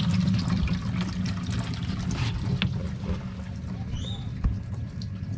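Water jetting from the bilge-in fitting and splashing into a part-filled poly live bait tank as the bilge pump fills it, over a steady low hum. A light knock about four and a half seconds in.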